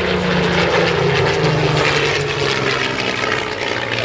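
Piston engine and propeller of a single-engine WWII fighter flying past overhead, its engine note dropping in pitch as it goes by.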